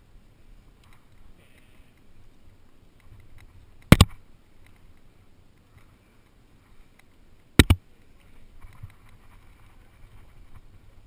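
Two sharp knocks about three and a half seconds apart, the second a quick double, over faint scuffing and rustling as the climber moves on the rock.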